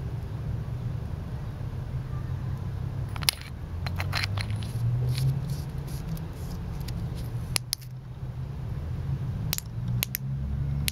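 Handling noise from a small titanium flashlight being opened up: scattered light metallic clicks and ticks, a few in a cluster about three to four seconds in and more near the end, over a steady low rumble.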